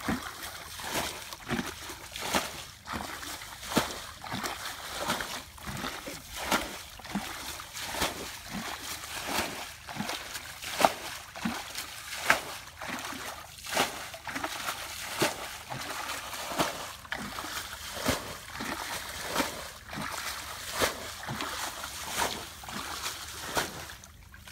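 Hands plucking feathers from a wet poultry carcass in a metal bowl of water: repeated short wet splashes and slaps, about one or two a second, over a faint steady hiss.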